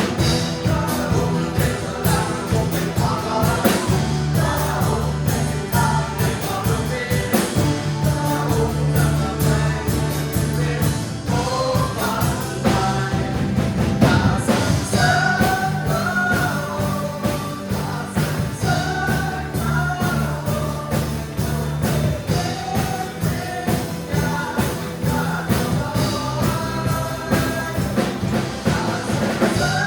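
Worship band and congregation singing a Christian praise song, voices over a steady bass and beat.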